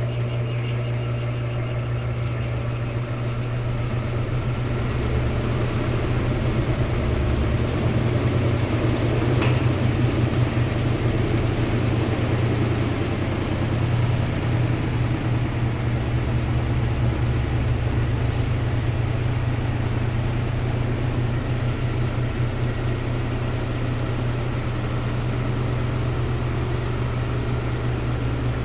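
Electrolux LT13B top-loading washing machine running, a steady low motor hum that grows a little louder for a while in the middle.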